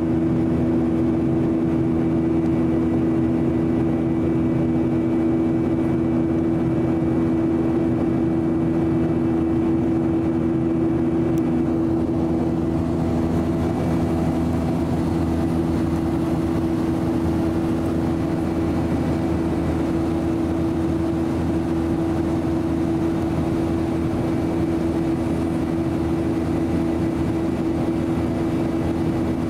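Steady cabin noise inside a Boeing 737-800 in flight: the drone of its CFM56 engines and the airflow, with a steady low hum of two pitches running through it.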